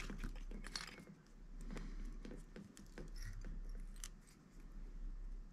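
Faint scattered clicks and light scrapes of fly-tying thread and a wire whip-finish tool working at the hook eye, as the thread is whip-finished.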